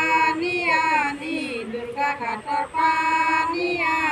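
A high female voice singing a slow melody in long held notes, with short breaks between phrases.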